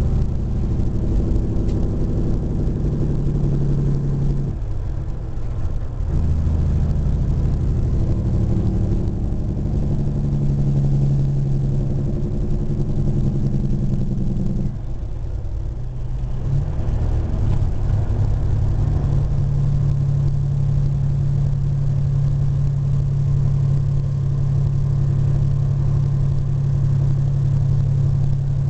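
Truck engine running at road speed, heard from inside the cab as a steady low drone. It eases off briefly twice, about five and fifteen seconds in, then picks back up and holds steady.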